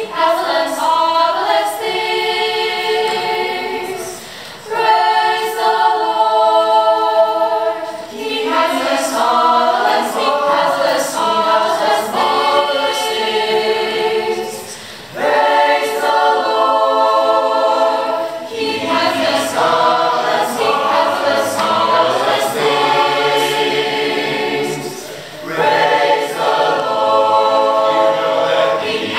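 Mixed youth choir of boys and girls singing a cappella, in long phrases with short breaks every few seconds.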